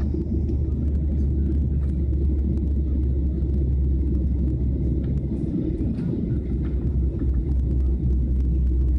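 Jet airliner cabin noise heard from a window seat while climbing through cloud after takeoff: a steady low rumble of the engines and rushing air.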